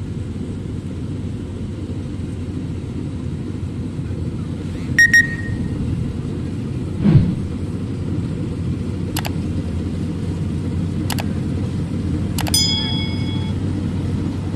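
Maxxi NDR 102L rice combine harvester running steadily while it cuts, a low rumble. A few sharp clicks stand out over it, two of them followed by brief high ringing tones, and there is one dull thud near the middle.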